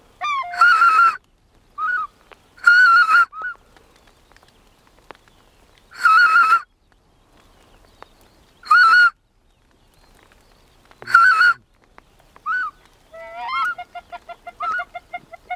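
Goose honks: five loud, drawn-out calls a couple of seconds apart, then a quick run of short cackling calls near the end.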